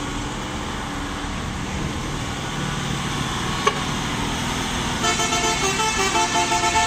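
Hino tank truck's diesel engine pulling uphill under load, with road noise. About five seconds in, a multi-tone telolet horn from a vehicle coming downhill starts up, playing a quick pulsing melody that steps between notes.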